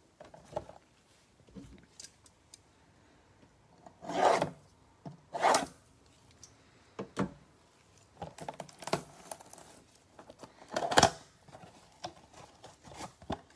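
Gloved hands handling and tearing open a cardboard trading-card blaster box: a series of short rubbing and tearing scrapes of cardboard, the loudest about four, five and a half and eleven seconds in.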